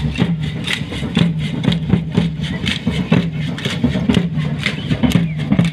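Rhythmic percussion of a folk dance troupe: a steady beat of sharp clattering strokes, about two and a half a second, from the dancers' rattles and stamping steps, with a low pitched thud on each beat.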